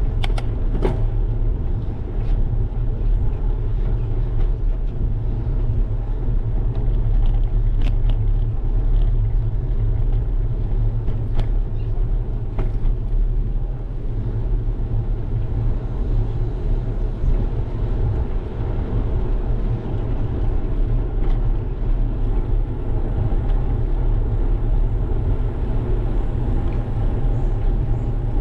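Steady low rumble of wind buffeting a bicycle-mounted GoPro's microphone while riding, with a few faint clicks.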